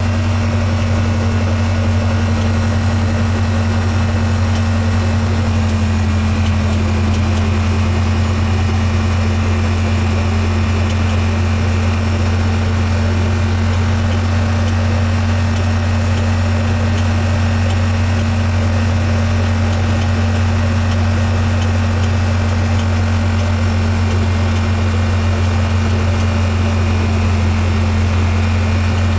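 Yamaha RMAX4 1000 side-by-side, its parallel-twin engine running at a steady drone, with an intermittent clicking and clanking. This is a heat-induced noise that appears only once the machine is warm and moving at speed, and the owner suspects the transmission.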